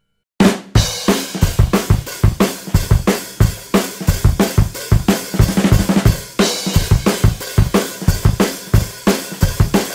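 Rock music with a fast, busy drum beat of kick, snare and cymbals, starting about half a second in after a brief silence.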